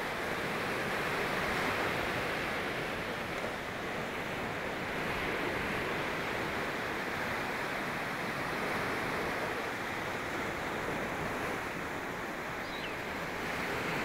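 Sea surf: waves breaking and washing up a sandy, shell-strewn beach in a steady rush that swells and eases a couple of times.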